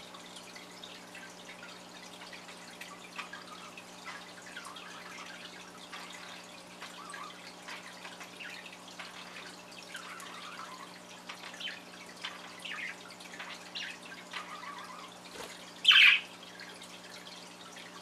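Budgerigars chattering softly with scattered short chirps, with one loud sharp call near the end, over a steady low hum.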